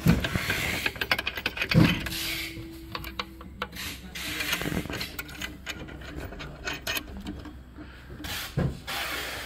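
Bolts and nuts being worked by hand into a rowing machine's steel frame plate: repeated small metal clicks and rubbing, with one heavier knock about two seconds in.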